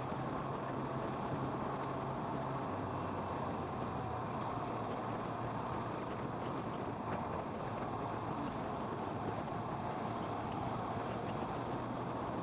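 Kawasaki motorcycle running under way, a steady engine hum beneath wind and road noise. The low engine tone steps down a little about two and a half seconds in.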